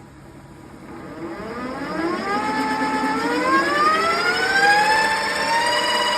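An electric motor in a lathe drive spinning up: a whine that starts about a second in, rises steadily in pitch for several seconds, then holds steady near the end.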